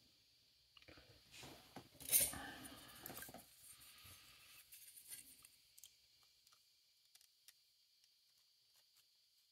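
Handling noise of a 3D-printed plastic folding laptop stand: a sharp knock about two seconds in, then a second or so of scraping and rattling plastic. After that come only a few faint ticks as a steel ruler is worked into the gaps between its print-in-place parts.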